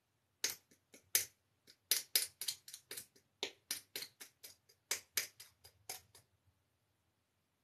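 A craft knife's metal tip picking and scraping at the plastic cap of a paint bottle: an irregular run of sharp little clicks, about three or four a second, that stops after about six seconds.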